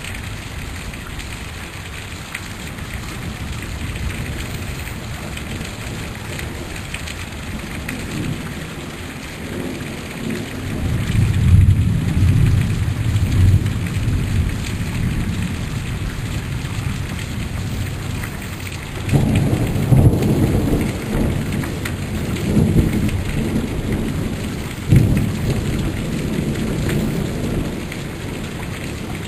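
Steady heavy rain during a summer thunderstorm. Thunder rolls in, building from about ten seconds in, and a second, sudden rumble breaks about nineteen seconds in and rolls on in several swells.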